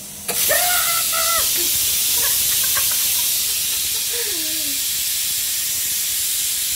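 Pressure cooker's whistle weight lifted with a spoon, letting the steam out in a loud, steady hiss that starts abruptly: a forced final whistle to release the pressure from the cooked dal.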